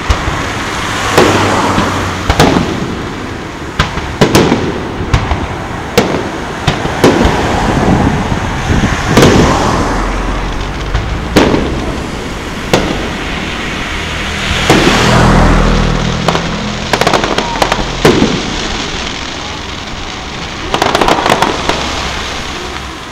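Aerial firework shells bursting overhead: a long series of sharp bangs, roughly one every second or so, with echoing tails and stretches of crackle after some bursts.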